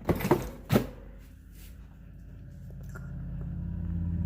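A few sharp plastic knocks and clatters from handling a small RC car, then a low rumble that grows slowly louder.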